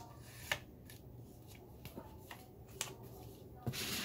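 A CD and its case being handled: a few light clicks and taps, then a short sliding rustle near the end as the disc is put back in its case.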